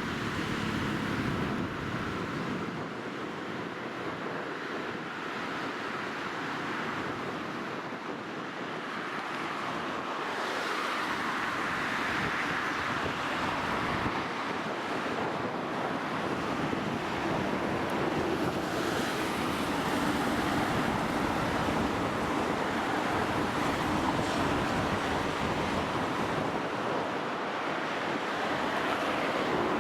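Steady rushing noise of flowing river water and wind, with wind buffeting the microphone, growing slowly louder.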